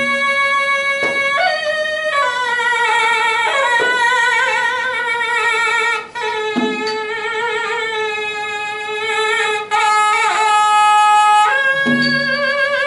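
Pi nai, the Thai quadruple-reed oboe, playing a slow solo melody of long held notes with wavering vibrato and slides between pitches. A barrel drum gives a low stroke three times, about six seconds apart, and a few short, sharp strikes fall between them.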